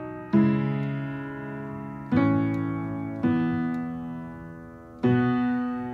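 Background music: slow piano chords, four of them, each struck and left to ring out and fade before the next.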